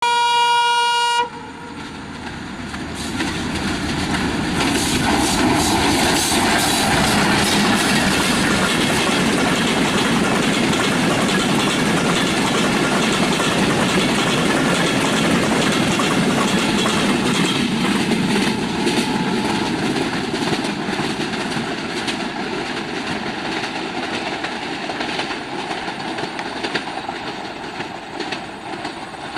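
A diesel train's horn sounds once for about a second. Then the Maitree Express passenger train runs by, its wheels clattering over the rail joints; the noise builds, stays loud for a long stretch, then slowly fades.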